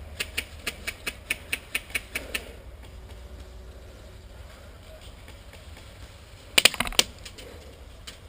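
Airsoft electric rifle firing: a steady string of about a dozen single shots, roughly five a second, then after a pause a quick burst of five or six shots, the loudest sound here.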